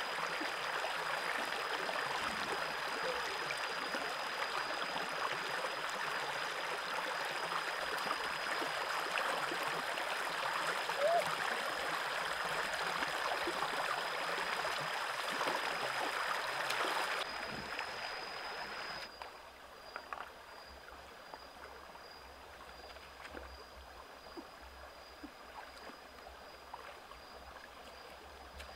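Shallow rocky stream running over stones, with a thin steady high tone throughout. About 17 seconds in, the rush of water drops sharply and about two seconds later it grows quieter still, leaving softer trickling with a few light splashes.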